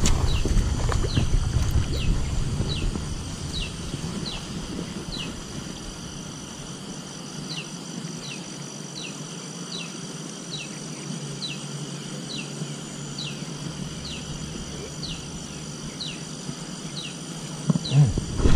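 Rural wildlife chorus: short chirps falling in pitch, repeated about twice a second with a few pauses, over a steady high-pitched insect drone. A low rumble is loudest in the first few seconds, then eases.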